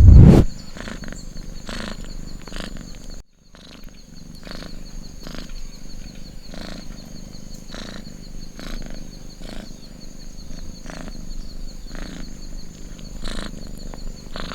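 A loud, low boom in the first half second. After a brief drop-out, a house cat purring steadily in cycles a little under a second long, over a night-time background with a steady high whine.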